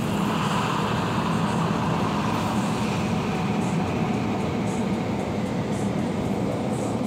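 Automatic car-wash gantry working over the car, heard from inside the cabin: a steady, loud rushing rumble with no breaks.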